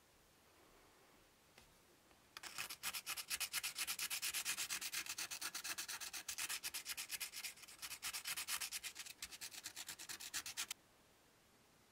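Quick hand-rubbing strokes of a flat strip against the corroded rim of an old radiator's threaded part, several strokes a second. The rubbing starts about two seconds in and stops abruptly about a second before the end.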